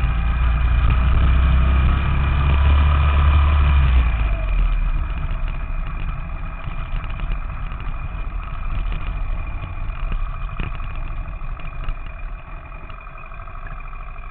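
Small four-stroke single-cylinder minibike engine running steadily under throttle, then easing off about four seconds in and running lower and quieter as the bike slows, fading toward the end.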